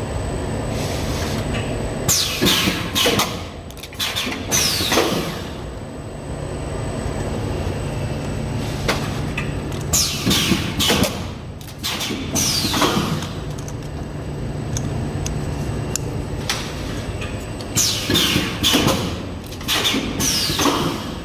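Ruida plastic cup-lid production machine running through its work cycle: a steady hum, broken about every eight seconds by a burst of clatter and falling hiss, three times over.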